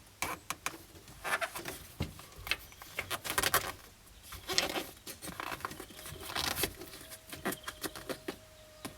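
Hand-handling noises of cut pieces being wedged into a motorhome's front-window opening: scattered rustling, light taps, clicks and scraping, with a faint steady hum coming in about two-thirds of the way through.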